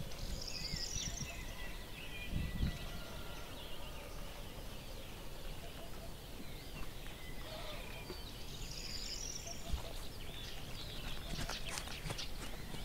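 Wild birds chirping and warbling, with bright bursts of song near the start and again about two-thirds of the way through. A dull thump comes a couple of seconds in, and a run of sharp clicks and knocks near the end.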